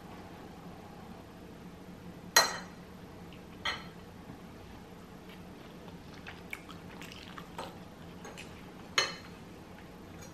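Metal fork clinking against a ceramic bowl while scooping food: three sharp clinks, the loudest about two seconds in, with a few fainter ticks between them.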